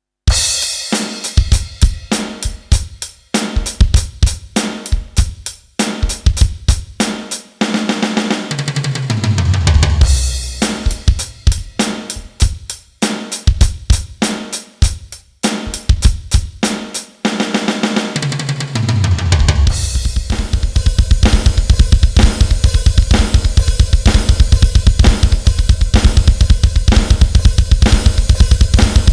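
Roland TD-12 V-Drums electronic kit played as a final test after a mesh-pad repair, its sound module recorded directly: a kick, snare and cymbal groove broken by two tom fills that fall in pitch, then from about two-thirds in a fast, even run of kick strokes under steady cymbals.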